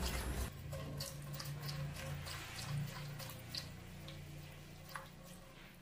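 Wire whisk stirring a gelatin and sugar mixture in water in a pot: liquid swishing with scattered light ticks of the whisk wires, growing fainter toward the end.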